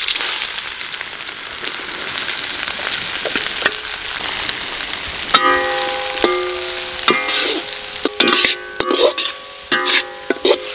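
Sliced shallots sizzling in hot oil in a kadai. From about halfway, a steel ladle stirs them, with irregular clinks and scrapes against the pan.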